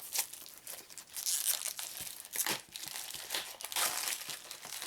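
Plastic wrapping being torn and crumpled off a small game box, in irregular crinkling bursts.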